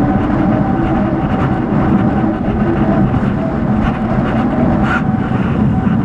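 Model aircraft's motor and propeller running steadily in flight, a steady hum with heavy wind noise on the onboard microphone.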